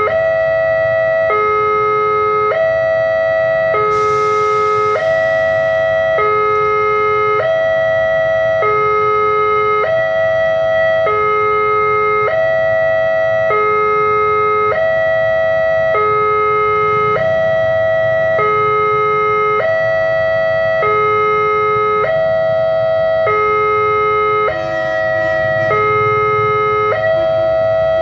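Railway level-crossing warning alarm sounding: two electronic tones, one higher and one lower, alternating steadily with each held a little over a second, signalling that a train is approaching. A low traffic rumble runs underneath.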